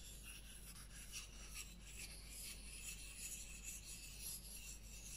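Knife blade rubbed over the fine-grit side of a hand-held diamond sharpener, a faint, steady rasping of many short strokes. It is quiet because the fine grit is a much smoother surface.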